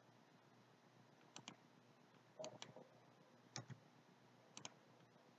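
Computer mouse clicking: four faint pairs of quick clicks, about a second apart, over near silence.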